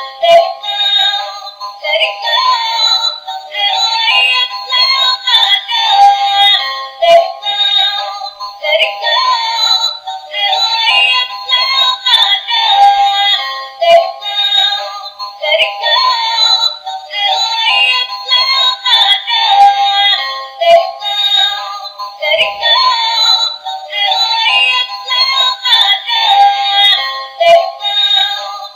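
Dancing Chhota Bheem toy playing its electronic song with a synthesized singing voice through its small built-in speaker. The sound is thin and tinny with no bass, and a short tune repeats every several seconds.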